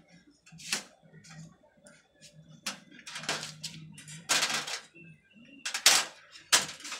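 Aluminium LED backlight strips being handled on a TV's sheet-metal back panel: a string of sharp metal clicks and taps, with two longer scraping rustles in the middle.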